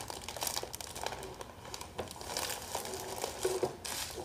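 Thin plastic fish bag crinkling and rustling in irregular crackles as it is gathered and twisted closed by hand.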